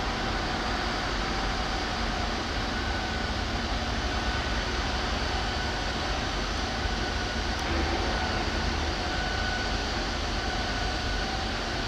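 Steady mechanical rumble and hiss with faint held hum tones, unchanging throughout.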